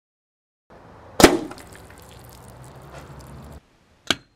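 Two air rifle shots heard from the target end. About a second in comes a loud, sharp crack as a pellet from a full-power spring-piston air rifle strikes a row of plasterboard sheets, followed by a short ring and outdoor background. Near the end there is a shorter, quieter crack as another shot hits a row of water-filled plastic jugs.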